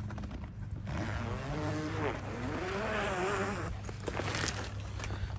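A motor vehicle passing, its engine note rising and falling as the noise swells and fades over about three seconds, over a steady low hum.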